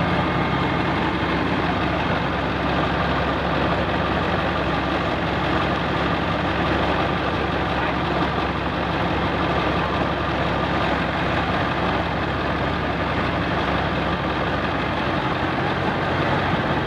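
A heavy vehicle's engine idling steadily.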